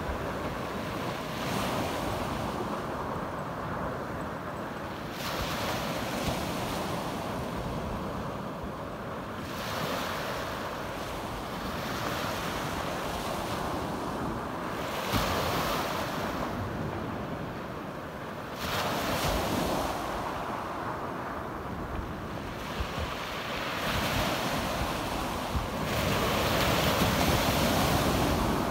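Small waves breaking and washing up a pebble beach, a new surge every few seconds, the loudest near the end. Wind rumbles on the microphone throughout.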